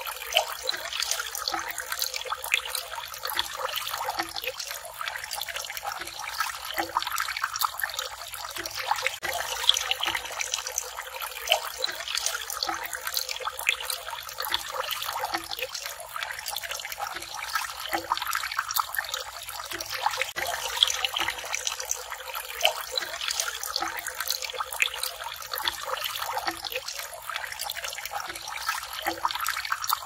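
Water trickling from a bamboo pipe and splashing into a shallow stone-lined pond: a steady splashing with frequent small drips.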